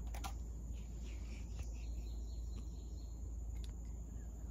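Tropical forest ambience: a steady high-pitched insect drone over a low rumble, with a couple of clicks just after the start and a faint bird chirp a few seconds in.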